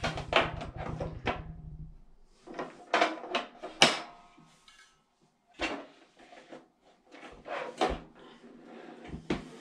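Plastic-cased portable propane heater being handled on a wooden table: a series of clunks and knocks as it is shifted and tipped up, the loudest a little under four seconds in. A low fluttering rumble runs through the first two seconds.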